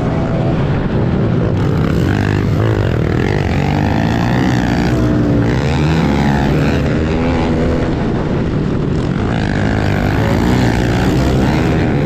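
Pit bike engine revving hard in a dirt-track race, its pitch rising and falling with the throttle, with other pit bikes' engines close by.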